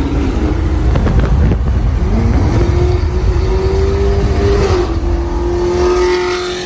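Chevrolet Camaro SS's V8 exhaust running at highway speed alongside, its engine note climbing about two seconds in and then holding steady, over heavy wind and road rumble.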